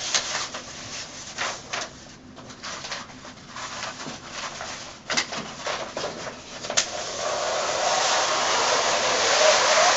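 Wax-paper backing being peeled off a peel-and-stick wallpaper mural: scattered crinkles and crackles of the paper, then from about seven seconds in a louder continuous peeling rasp as a long strip of backing comes away from the adhesive.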